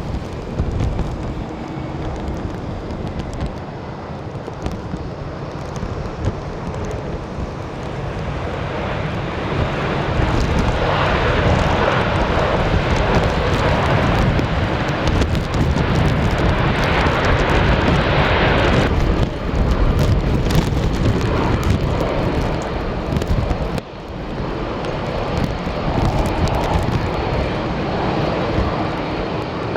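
Airbus A330's jet engines, swelling about a third of the way in and loudest in the middle before easing off. Strong wind rumbles on the microphone throughout.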